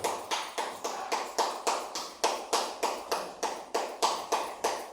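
One person clapping hands in a steady, even rhythm, about three to four claps a second, each clap with a short ring after it. The clapping is the signal for the children to keep passing the parcel.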